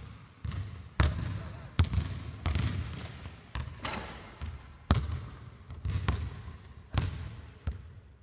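Basketball bouncing on a hardwood gym floor: sharp thuds at an uneven pace, about once a second, each followed by a short echo from the hall.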